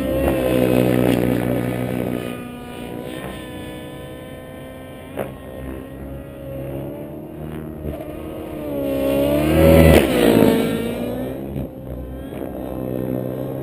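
Aircraft engine flying overhead, its pitch sliding up and down as it passes and manoeuvres, growing loudest about nine to ten seconds in.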